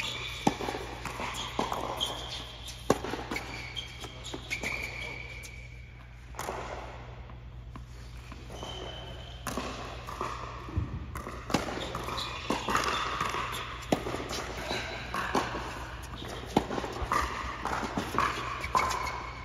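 Indoor tennis rally: sharp pops of racket strikes and ball bounces on a hard court, echoing in a large hall, with footsteps scuffing between shots.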